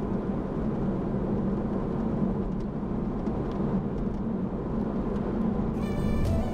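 Steady road and engine noise inside a moving car's cabin. Near the end a pitched tone with many overtones comes in.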